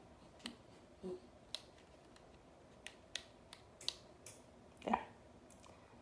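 Faint, irregularly spaced clicks and light taps, about a dozen of them, over a quiet steady background hiss, with a slightly louder knock about five seconds in.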